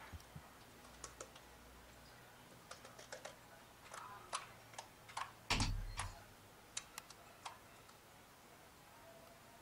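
Homemade glue-and-detergent slime being poked, pressed and pulled by fingers on a glass tabletop: faint, scattered small sticky clicks and pops, with a louder thump a little past halfway.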